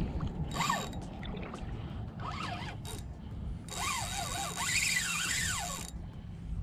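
Spinning reel being cranked while fighting a hooked fish, its gears whirring in short spurts and then in a longer run of about two seconds.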